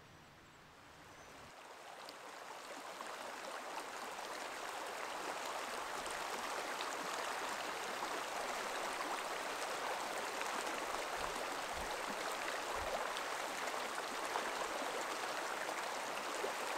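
Shallow, rocky mountain creek running over stones: a steady rush of water that swells in over the first few seconds.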